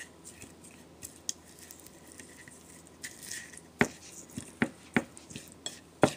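Raw chicken thigh pieces being squished and turned by hand in a soy sauce marinade on a ceramic plate. It starts as faint, soft wet handling, and from about halfway through there are several short sharp clicks against the plate.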